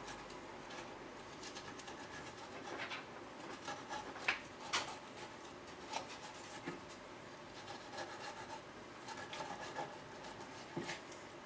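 Knife scraping and slicing along the rib bones of a wild boar saddle as the loin is cut free, a faint rubbing scrape with scattered small clicks. The sharpest clicks come a little past four and near five seconds in.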